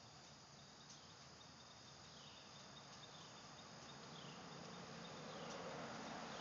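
Near silence with a faint insect chorus: a steady high trill with soft falling chirps repeating every half second or so. A faint hiss grows louder over the last couple of seconds.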